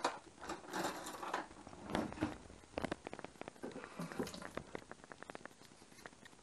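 Kitchen utensils clattering as they are handled: metal cutlery rattling in a drawer, then chopsticks and utensils clicking against a metal tray and sink. An irregular run of clicks and knocks that thins out after about five seconds.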